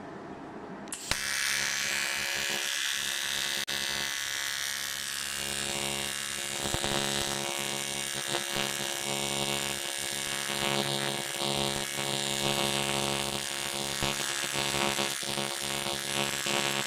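Argon TIG welding arc on aluminium, striking about a second in and then buzzing and hissing steadily at high current as it melts the broken ear of a steering knuckle.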